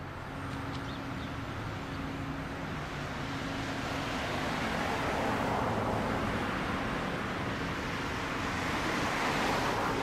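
Street traffic: an engine hum with road noise that grows gradually louder toward the end, with some wind.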